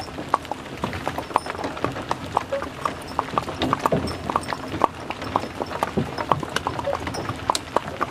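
Hoofbeats of a pair of Hucul horses pulling a wagon on an asphalt road: a quick, uneven clatter of many sharp clip-clops.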